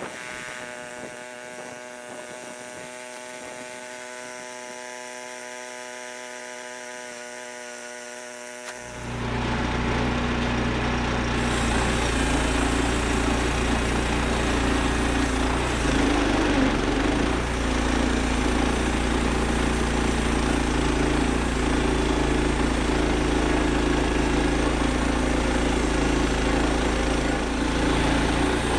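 Bandsaw sawmill's gas engine running steadily at low speed, then about nine seconds in brought up to full speed with a loud, steady rush as the band blade runs, cutting a slab from an ash log.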